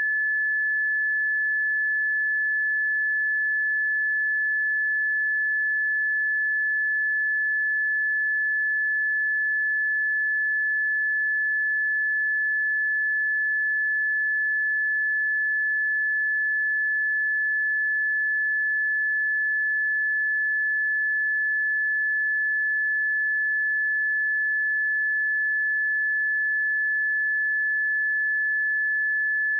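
A steady, pure 1728 Hz sine-wave test tone, held at one pitch and level throughout.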